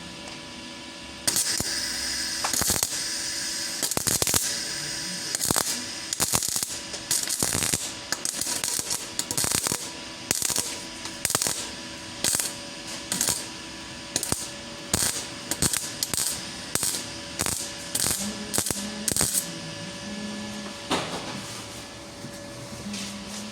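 Ratchet wrench worked in quick repeated strokes, about two a second, during work on the engine of a Hyundai Porter, after a few seconds of dense hissing clatter at the start.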